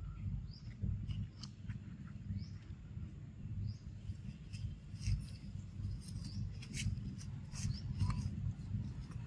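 Outdoor ambience: a steady low rumble on the microphone, with short high-pitched chirps about once a second and scattered light clicks and rustles, busiest in the second half.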